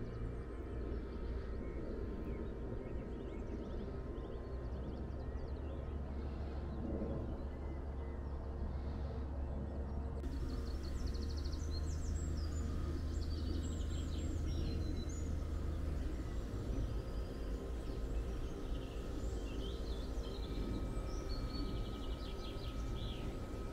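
Small songbirds chirping and warbling over a steady low rumble; the birdsong comes in strongly about halfway through.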